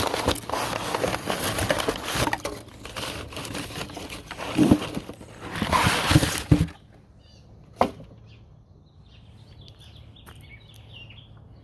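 Loud rustling and knocking, like something being handled close to the microphone, that cuts off abruptly about two-thirds of the way through. Then comes a quiet stretch with one sharp click and faint high chirping.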